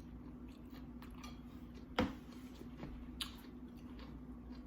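Quiet eating sounds: faint mouth clicks and chewing, with one sharp click about two seconds in and a smaller one about a second later.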